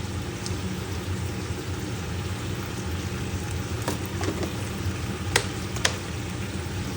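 Caramel-braised pork sizzling in a pan, an even frying hiss over a steady low hum, with a few sharp clicks around four and five and a half seconds in.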